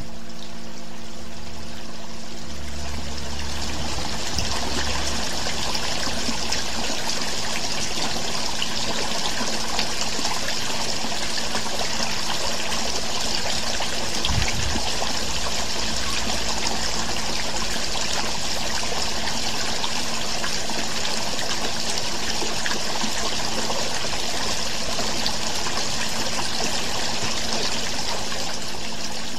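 Steady sound of running water, like a stream, continuous and even throughout, with a faint low hum underneath.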